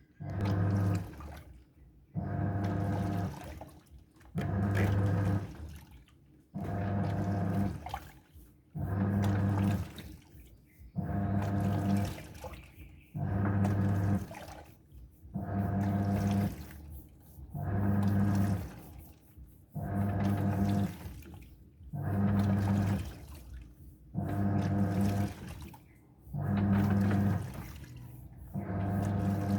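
Washing machine agitating its load: the drum motor hums in bursts of a bit over a second, one about every two seconds, each turn sloshing the water in the drum. Very loud.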